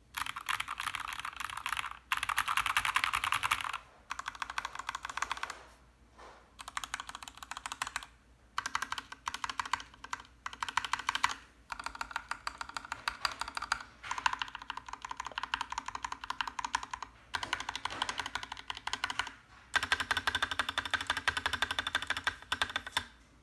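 Fast typing on a GMMK Compact mechanical keyboard with lubed Gateron Ink Black linear switches, the keystrokes running in quick bursts of a couple of seconds broken by short pauses.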